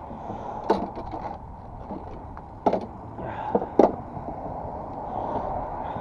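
Sharp plastic-and-metal knocks and clatter as a grass catcher bag is fitted onto a push lawn mower: one knock about a second in, another near three seconds, and a quick pair about a second later, over a steady background noise.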